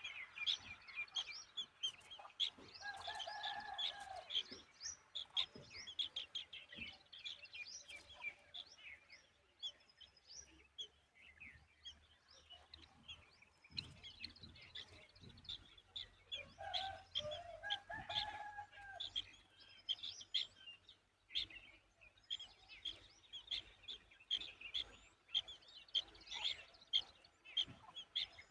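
Birds chirping in quick, dense strings of short high notes, with a lower, longer call twice: about three seconds in and again around seventeen seconds.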